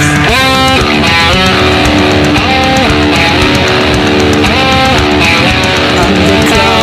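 Instrumental passage of a rock song: electric guitar playing over bass guitar and drums.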